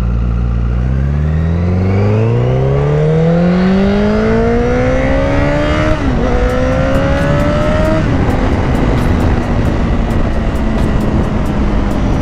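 Honda CBR1000RR's inline-four with a full titanium exhaust pulling away hard, revs climbing steadily. The revs drop briefly for an upshift about six seconds in, climb again, and after a second shift around eight seconds the engine holds a steady note under rising wind rush.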